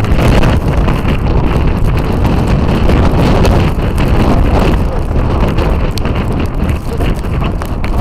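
Storm wind of about 40–45 mph buffeting the microphone: a loud, continuous low rumble that swells and eases with the gusts.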